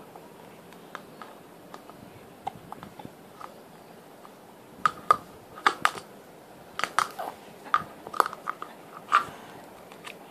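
Small plastic toy spoon and clear plastic cup clicking and knocking together in a string of sharp taps, a few light ones at first, then a denser, louder run about halfway through.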